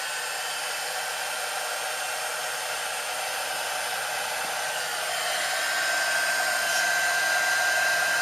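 Ryobi cordless heat gun running, its fan motor holding a steady whine over a rush of blowing air as it shrinks heat-shrink tubing over a soldered wire joint; the sound grows a little louder about five seconds in.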